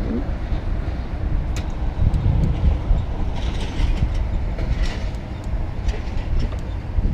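Steady low rumble of heavy traffic passing close by, with a few light clicks and knocks over it.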